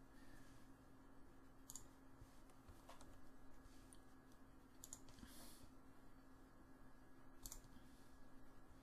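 Faint computer mouse clicks, a handful spread over several seconds, over a steady low hum.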